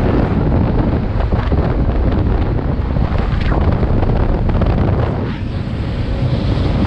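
Wind buffeting a microphone held out the window of a moving truck, over a steady low rumble from the truck. The rush eases for a moment a little after five seconds.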